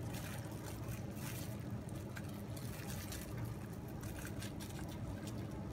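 Steady low hum in the background, with a few faint clicks as a wire egg slicer is pressed and turned through a hard-boiled egg to dice it.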